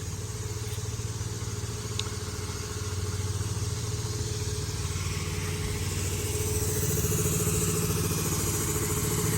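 A motor engine running steadily at idle, a constant hum that grows a little louder over the last few seconds.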